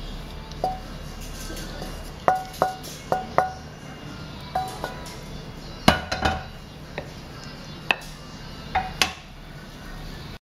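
A pan and spatula clinking as braised chicken and hairy gourd is scraped out onto a ceramic plate: a dozen or so sharp clinks in irregular clusters, several with a brief ring.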